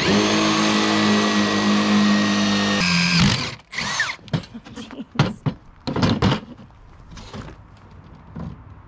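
Cordless drill running steadily at speed, a twist bit boring a test hole through a wooden board. The drill stops abruptly about three seconds in, followed by a few sharp knocks and clatter as the board and drill are handled.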